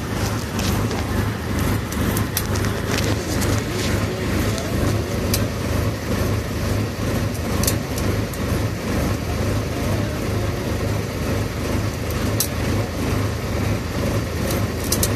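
Steady engine and road rumble inside a moving bus cabin, with a few sharp clicks scattered through it.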